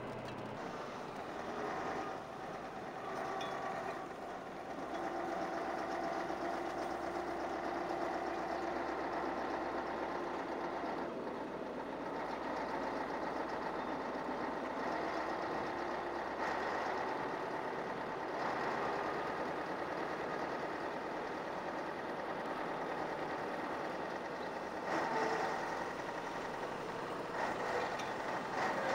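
Volvo truck driving, heard from inside the cab: a steady engine drone mixed with road noise, swelling briefly a few times.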